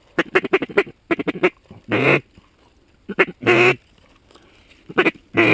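Mallard duck call blown loud and close in a series of raspy quacks. A quick run of short quacks comes first, then longer single quacks about once a second, calling to ducks as they come in.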